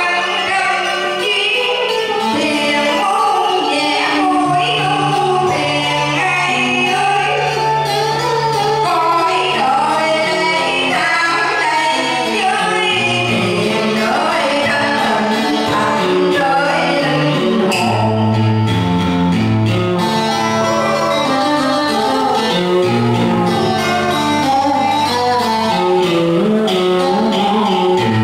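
A song: a singing voice over instrumental backing with sustained bass notes.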